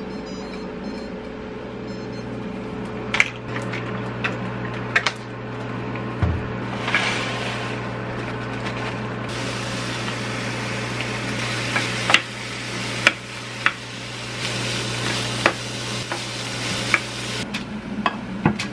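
Rice frying and sizzling in a small square pan, stirred with chopsticks and a wooden spatula that tap against the pan several times; the sizzle is strongest in the second half. A steady low hum underneath stops near the end.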